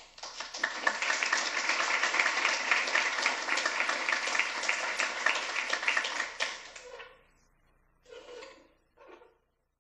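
A small audience applauding: many quick hand claps for about seven seconds, then dying away.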